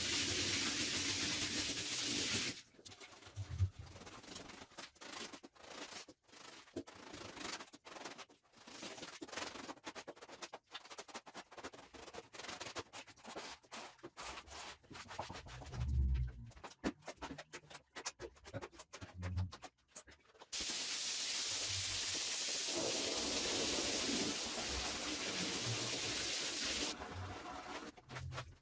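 A muddy carpet is scrubbed with a brush in short, irregular rubbing strokes, with occasional low thuds. A steady hiss of cleaning equipment opens the clip, then returns for several seconds before the end.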